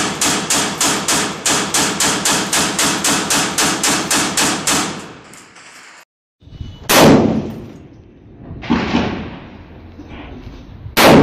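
Rapid rifle fire from an AK-pattern rifle, about four shots a second for some five seconds, then stopping. After a short break, a scoped rifle fires single shots about two seconds apart, each a sharp crack with an echoing tail.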